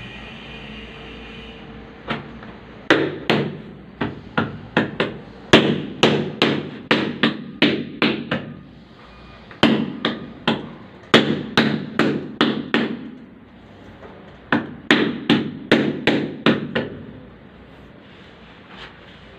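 Large wall tile being tapped repeatedly to bed it into the tile adhesive: sharp knocks, about two or three a second, in three runs with short pauses between.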